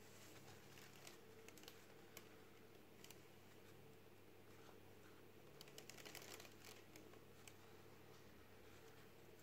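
Near silence with faint taps and rustles of a small cardboard box being handled and turned in the fingers, and a short cluster of them a little past halfway.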